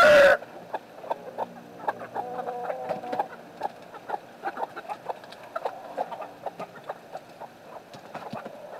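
Backyard chicken flock clucking, with many short calls and scattered faint ticks. A brief, very loud call with a bending pitch comes right at the start.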